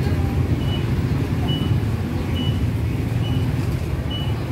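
Steady low rumble with a short, high-pitched beep repeating about once a second.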